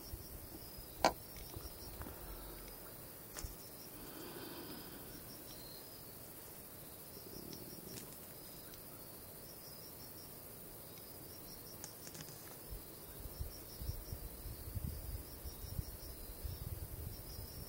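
Insects chirping in a high, repeating pattern, with a single sharp click about a second in and low rumbling near the end.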